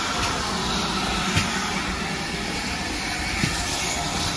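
Steady hiss and rumble from a GWR Large Prairie 2-6-2 tank steam locomotive standing at the platform, with two light knocks about a second and a half and three and a half seconds in.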